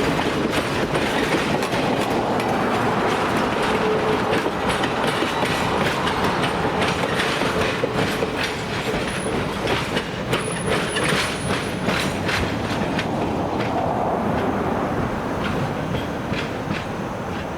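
Passenger train cars rolling past, wheels clicking steadily over rail joints, with brief high wheel squeals. The sound eases slightly near the end.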